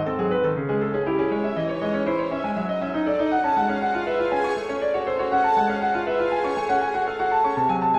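Instrumental background music with piano: a run of notes over a changing accompaniment at a steady level.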